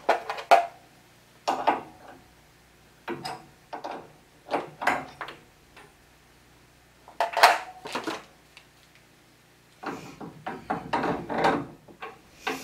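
Hand tools clinking, knocking and scraping on copper water-heater plumbing as a drain tube and an old thermal expansion valve are taken off. The sound comes in several short bursts with quiet gaps between them.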